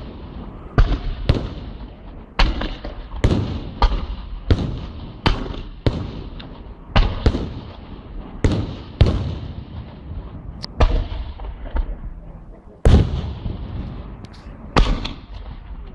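Fireworks exploding: a string of sharp, loud bangs about one every second, some in quick pairs, each trailing off in an echo.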